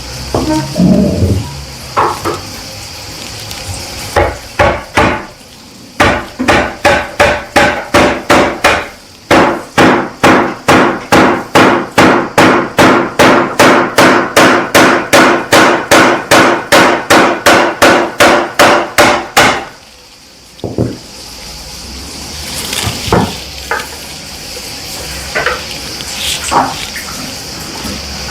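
Hammer tapping nail-in plastic glides into the feet of chair legs: a few blows about four seconds in, then a long run of steady, evenly spaced strikes, nearly three a second, each with a short ring, stopping after about twenty seconds. A few scattered knocks follow.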